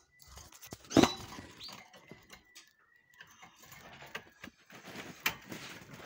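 Canaries moving about in a wire cage: scattered clicks, rustles and wing flutters, the loudest about a second in, with a short chirp just after it and a sharp click near the end.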